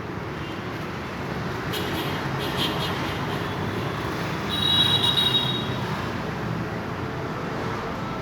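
Log-sawing machine running with a steady mechanical noise. About halfway through there is a short high-pitched whine, the loudest part, which is typical of the saw blade working through wood.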